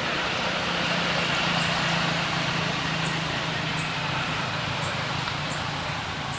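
A low steady engine hum, as of a vehicle running some way off, swelling near the start and easing off, over a haze of outdoor background noise. Short high chirps come roughly once a second.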